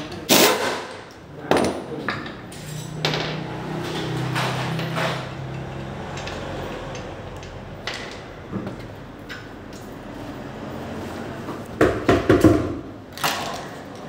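Metal knocks and clatter at uneven intervals, as tools and brake parts are handled, with a quick run of several knocks near the end. A steady low hum sounds for a few seconds early on.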